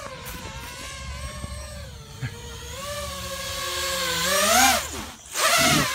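FPV quadcopter's brushless motors and propellers whining, heard from on board; the pitch wavers with the throttle, then climbs to its loudest over the last two seconds. It drops sharply about five seconds in, followed by a loud rushing burst near the end.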